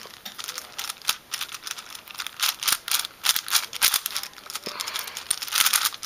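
Plastic clicking and rattling of a 5x5 Rubik's cube as its layers are turned by hand, with a quick run of clicks in the middle.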